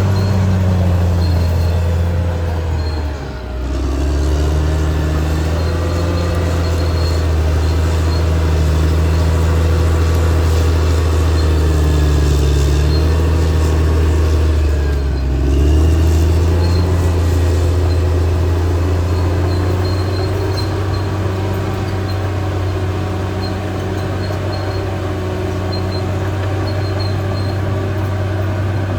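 Caterpillar D6R XL bulldozer's diesel engine running steadily under working load. Its note sags briefly and recovers about three seconds in, and again about fifteen seconds in.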